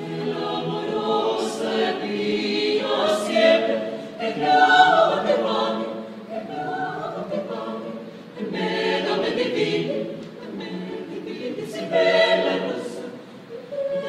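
Mixed choir of women's and men's voices singing a madrigal a cappella, in phrases that swell and fade every couple of seconds, with crisp sibilant consonants sung together.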